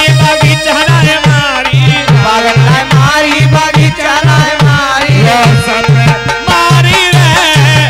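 Live Languriya folk music: a fast, steady hand-drum beat, about three to four strokes a second, with a wavering melody over it.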